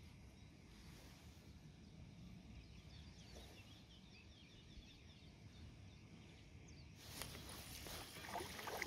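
Near silence with faint bird chirps. About seven seconds in, a rush of noise with splashing sets in and grows louder.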